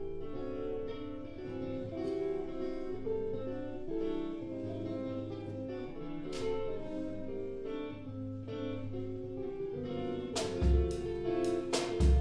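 Live jazz: a guitar playing held chords and a picked line over a low bass part. The drum kit comes in near the end with kick drum and cymbal hits.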